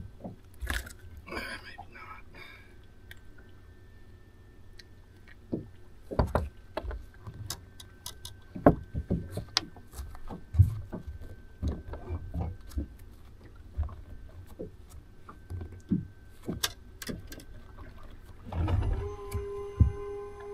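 Scattered clicks and knocks of handling on a bass boat deck as a caught bass is dealt with, over a constant low rumble. Near the end a steady tone with overtones comes in.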